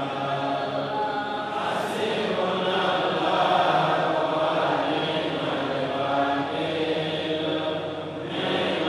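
A man reciting the Qur'an aloud in melodic chant, holding long notes, with a brief pause for breath near the end.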